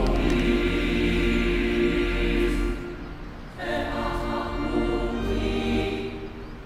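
Background music of choral voices singing long held chords, breaking off about three seconds in before a new phrase begins, then fading near the end.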